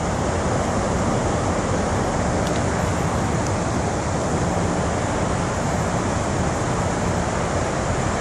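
Steady rushing of a fast-flowing river running over rapids, an even wash of water noise.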